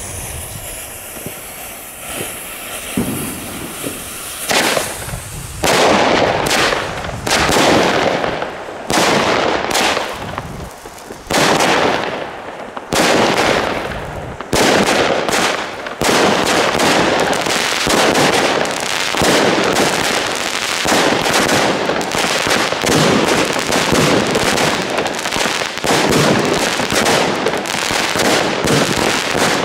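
Chained board of consumer firework batteries going off. A burning fuse hisses at first; from about five seconds in, shots launch and burst one after another, and from about sixteen seconds they come almost without a break, the batteries firing nearly back to back.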